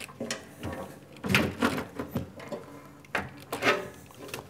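Electronics sub-panel being slid and set down inside a steel NEMA electrical enclosure: a series of metal clunks and scrapes, the loudest about a second and a half in and again near the end.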